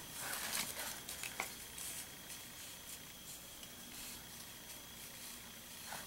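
Faint rustling and handling as grosgrain ribbon is wound around a wooden dowel, with a single light tick about a second and a half in.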